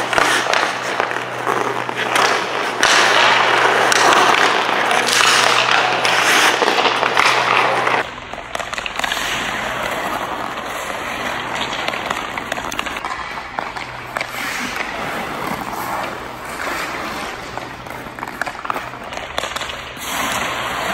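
Hockey skate blades scraping and carving on ice, with quick taps of stick and puck as the player stickhandles through a training bar. The sound is loudest for the first several seconds and then drops at a cut.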